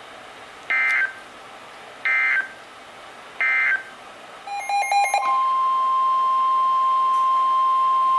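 Emergency Alert System end-of-message signal: three short bursts of warbling digital data tones about a second and a half apart. A brief jumble of tones and clicks follows, then a steady, single-pitched alert tone starts about five seconds in and holds.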